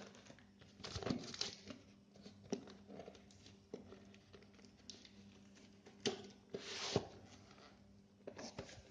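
Handling of a boxed Intel Pentium G4560 processor: scattered light knocks and taps on cardboard packaging, with a short rustle of packaging about seven seconds in.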